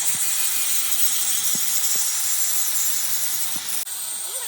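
A steady, loud, high-pitched hiss with a few faint knocks under it; the hiss changes abruptly about four seconds in.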